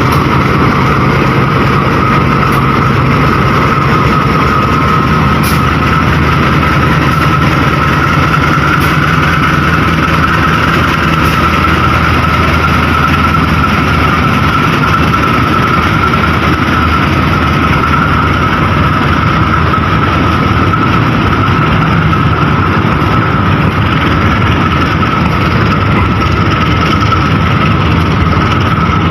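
Diesel locomotive running steadily: a low engine hum with a steady high whine above it and a few faint clicks in the first ten seconds.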